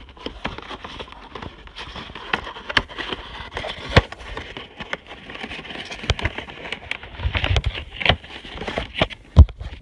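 Cardboard box being handled and pried open by hand: steady scraping and rubbing with many small clicks and sharp taps, the loudest tap near the end.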